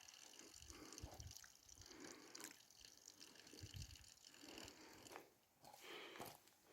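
Near silence, with faint irregular rustling and a few soft low thumps, briefly dropping out a little after five seconds.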